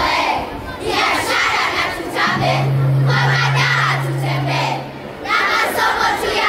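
A group of children chanting a Swahili poem (shairi) together in loud phrases with short breaks between them. A steady low hum sits under the voices for about three seconds in the middle.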